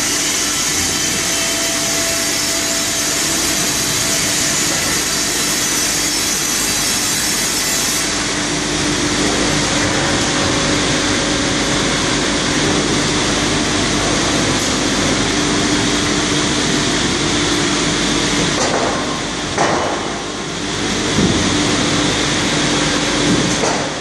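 Circular saws of a Wravor sawmill cutting line running and cutting timber: a loud, steady saw noise with a held hum. A few knocks near the end.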